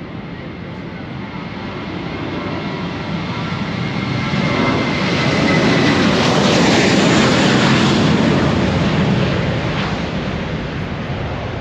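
Airliner's engines at take-off power as it runs down the runway and passes close by: a steady high whine, then a roar that swells to its loudest in the middle and fades away.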